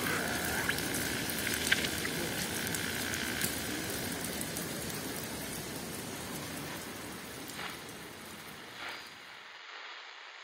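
Steady rain falling and splashing on wet stone paving, with individual drops ticking sharply. It grows gradually quieter and stops near the end.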